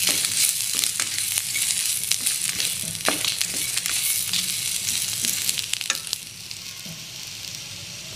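Chopped onion, dried red chillies and whole spices sizzling in ghee in a kadhai, stirred with a plastic spoon that clicks and scrapes against the pan. The sizzle and stirring ease off and grow quieter about six seconds in.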